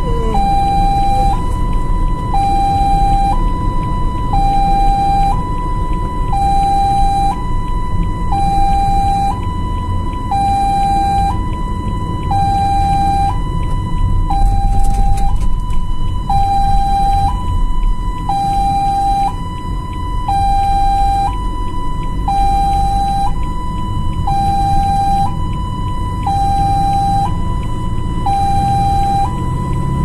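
Ambulance siren sounding a two-tone hi-lo wail, switching between a higher and a lower note about once a second, over low engine and road rumble.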